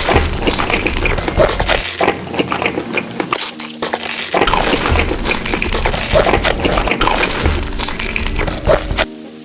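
Eating sounds: rapid, irregular crunching and cracking of something hard and brittle.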